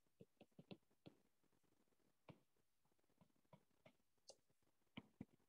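Near silence with faint, scattered ticks of a stylus tip tapping on a tablet's glass screen as words are handwritten, a few of them close together near the start and again near the end.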